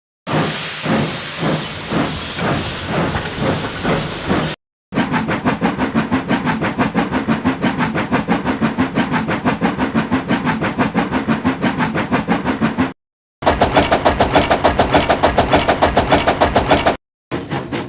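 A string of separate steam locomotive puffing sound effects, each cut off by a short silence. The first is slower chuffing with hiss, the next a long, even run of faster chuffs, then a louder, quicker run, and near the end a new run begins.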